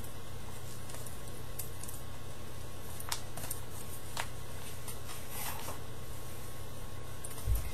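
Faint rustling and crinkling of paper and sticky tape being handled, with a few soft clicks, over a steady low electrical hum; a soft low thump near the end.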